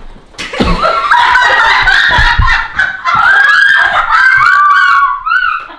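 Loud, squealing, honking laughter from more than one person, the voices overlapping. A couple of dull thumps come in the first two and a half seconds.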